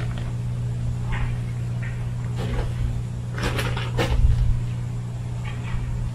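Short rustles and scrapes of a paper bag of parging mix being handled and set down after the dry mix is shaken into a plastic bucket, the loudest about four seconds in. A steady low hum runs underneath.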